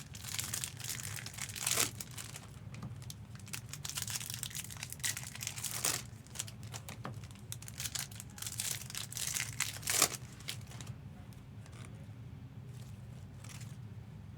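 Trading-card pack wrappers crinkling and tearing as packs are opened, in busy clusters of crackles that thin out over the last few seconds.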